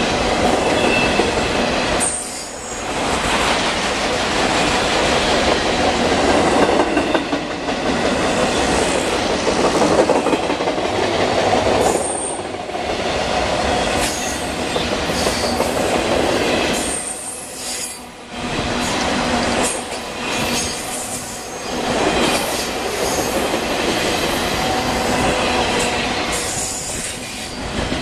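Autorack freight cars rolling past at close range: steel wheels rumbling and clattering along the rail, with a few brief high-pitched wheel squeals.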